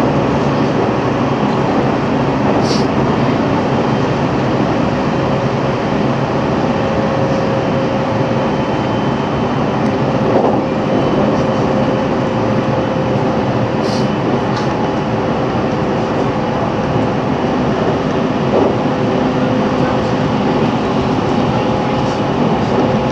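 Running sound of a JR Central 313 series electric train, recorded in the leading motor car KuMoHa 313-3: a steady rumble of wheels on rail with a steady motor hum. A few faint short high ticks come through about three seconds in and twice near the middle.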